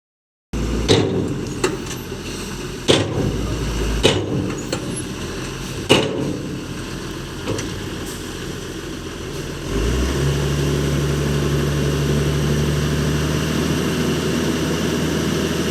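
Dump truck engine running, with several sharp knocks over it in the first ten seconds. About ten seconds in, the engine settles into a steadier, slightly louder drone with a steady low tone.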